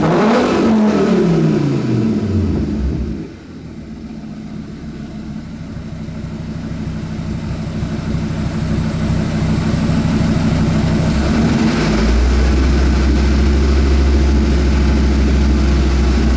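Fiat Marea 2.4 20v inline five-cylinder engine through a straight-piped exhaust with only a catalytic converter and one silencer: a rev falls back to idle in the first few seconds, then it idles. From about twelve seconds in, a strong deep drone dominates until the end.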